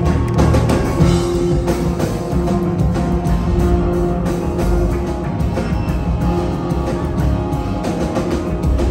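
Jazz quartet playing live: piano, double bass, electric guitar and drum kit together in a steady, full ensemble passage.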